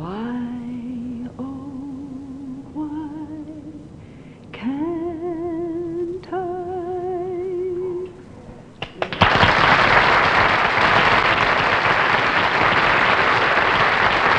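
A woman singing the last phrase of a slow ballad in long held notes with a wide vibrato, several notes sliding up into place; the singing stops about eight seconds in. About a second later a studio audience starts applauding loudly and keeps clapping.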